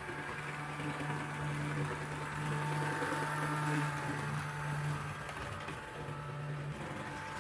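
Electric motor and gears of a model doodlebug railcar running steadily on the track with a constant hum, a little louder in the middle. There is no clunking from its gears, which have been repaired with CA glue and bicarb soda.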